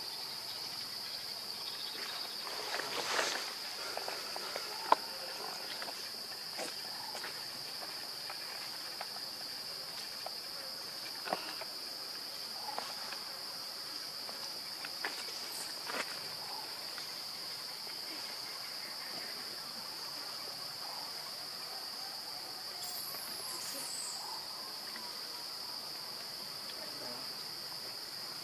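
Steady high-pitched buzzing of forest insects, one unbroken tone, with a few faint clicks and taps scattered over it and a sharp click about five seconds in.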